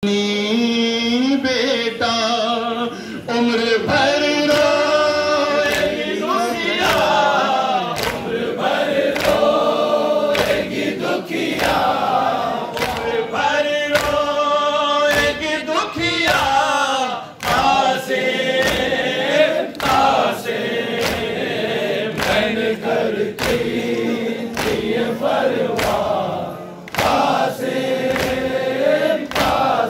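Nauha, a Shia lament for Muharram, sung by a male reciter into a microphone and carried over a loudspeaker, with many mourners' voices joining in. Sharp slaps at a regular beat run under the singing, the matam (chest-beating) that keeps time with a nauha.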